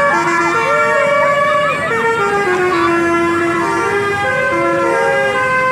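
Telolet Basuri multi-tone musical horn on an SJM Trans Jetbus coach playing a tune: a run of held horn notes that step up and down in pitch every fraction of a second.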